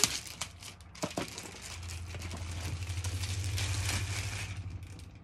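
Clear plastic wrapping crinkling and rustling as it is pulled off a shoe box, growing louder through the middle and easing off near the end, with a steady low hum underneath.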